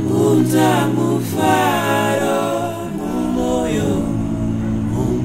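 Background music of several voices singing together without obvious instruments, in long held notes with a few gliding phrases.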